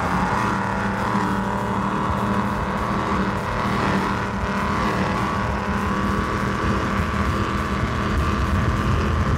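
The big Teague engines of a 38-foot Donzi ZRC powerboat running under way: a steady, throaty engine note that grows a little louder near the end.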